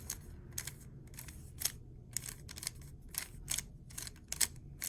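3x3 Rubik's cube layers being turned by hand: an irregular run of sharp plastic clicks, about two or three a second, as the last face turns finish the solve.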